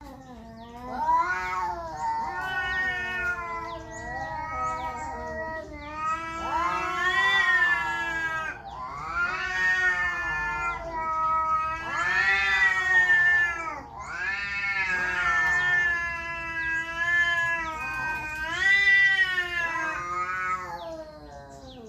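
Two stray cats caterwauling at each other in a standoff: long, wavering yowls that rise and fall in pitch, one after another with only short breaks. It is threat yowling before a fight.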